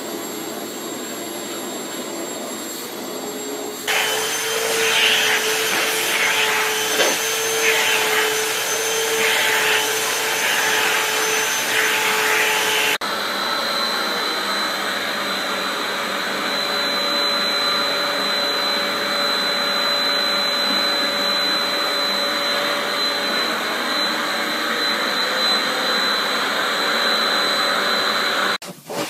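Vacuum cleaners running steadily, their hose nozzles held to cats' fur: a constant motor whine over a rush of air. It switches abruptly to a louder vacuum about four seconds in, and again about thirteen seconds in to another with a high steady whistle.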